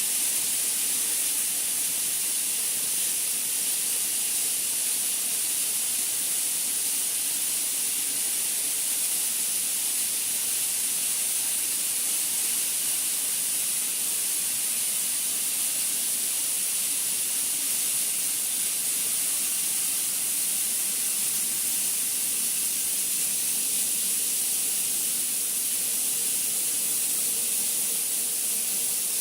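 Steady, even hiss with a strong high-pitched band, unchanging throughout, with a faint steady hum beneath it.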